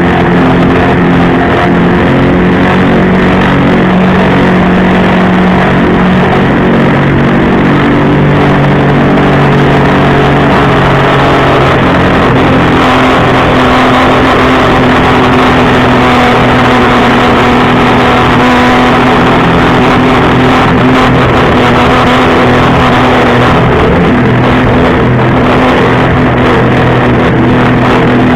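Jet ski engine running loud and steady under way while towing a tube, its engine note shifting to a different pitch about halfway through.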